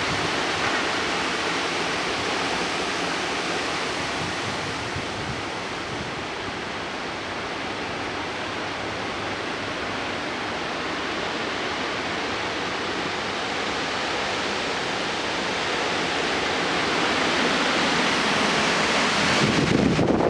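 Strong severe-thunderstorm wind blowing steadily, a dense rushing that eases a little midway and builds again near the end, when the wind also starts buffeting the microphone.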